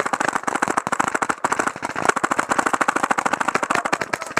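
Paintball markers firing rapidly, a dense, irregular crackle of overlapping shots at roughly ten a second.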